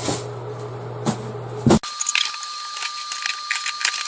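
Rustling and light clicking and clinking of outdoor gear and its packaging being handled, with a sharp knock a little under two seconds in. After that, the background changes abruptly and a faint steady high whine runs under the handling noise.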